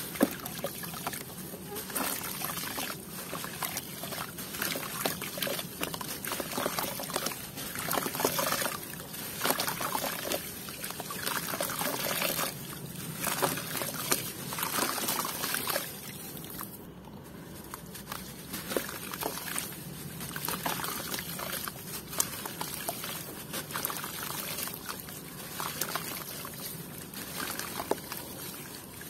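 A dried block of red dirt crumbling in the hands into water in a plastic basin: dry crackling as it breaks, and pieces dropping in with trickling, splashing and sloshing of muddy water.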